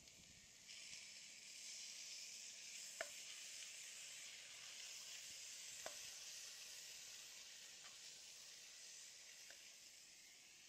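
Faint, steady sizzling of vegetables and foxtail millet frying in a cast-iron pot, with a couple of sharp clicks of the ladle as it is stirred.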